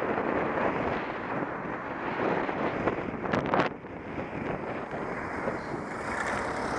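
Wind rushing over the microphone of a camera moving along a cycle path, with road traffic running underneath. A short rattle of clicks about three and a half seconds in.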